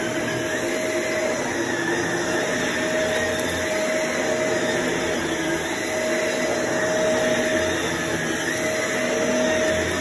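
Upright vacuum cleaner running while being pushed over carpet: a steady rush of air with a constant motor whine.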